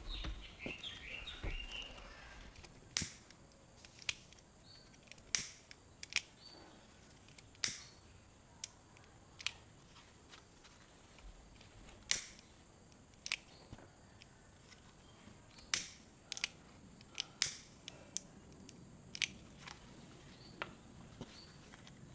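Soft fabric rustling, then faint, sharp clicks and taps at irregular intervals, roughly one a second, from handling pinned quilted fabric and a metal-toothed zipper.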